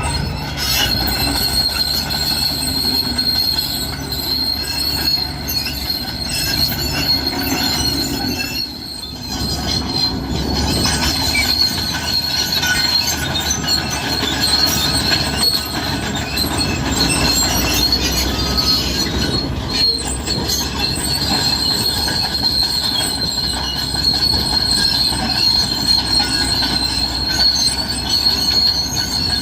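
Cat D6R crawler bulldozer working: its diesel engine running under a continuous high squeal and clatter of its steel tracks, with a brief dip in level about nine seconds in.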